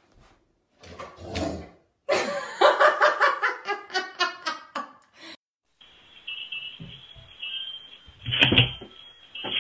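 A person laughing in bursts for about three seconds. After a short gap comes one loud thump near the end as a cat lands on a wooden desk.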